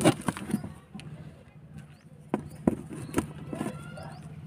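Scattered sharp clicks and knocks as WS2811 pixel LED bulbs on their wire string are handled and pushed into holes in a cardboard board, over a steady low hum.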